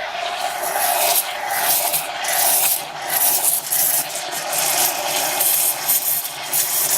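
Steam wand of a Lelit PL62T Mara heat-exchanger espresso machine steaming milk in a pitcher: a loud, rough hiss that rises and falls in level.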